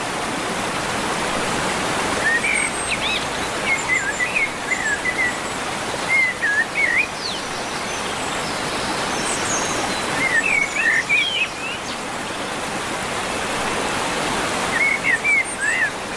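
Waterfall rushing steadily, with birds singing over it in several short bursts of quick chirping phrases.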